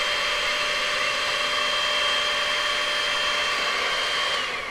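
Hair dryer running steadily, blowing hot air onto 3D-printed plastic strands to soften them for shaping. It is switched off near the end, its whine falling in pitch as the motor spins down.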